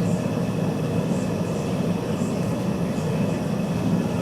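Metal-melting furnace burner running with a steady, even rush, heating a crucible of copper for remelting.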